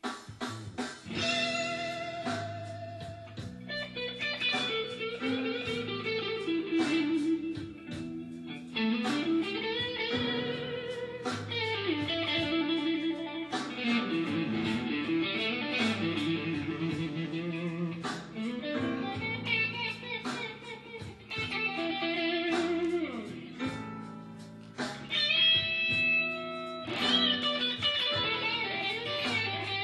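Fender Stratocaster electric guitar playing a blues intro: single-note lines with string bends over low bass notes.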